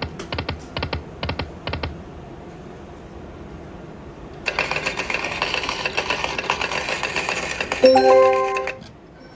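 Slot machine: five sharp taps in the first two seconds, then about four seconds of rapid, clicking electronic game sound, ending in a loud chime that cuts off suddenly.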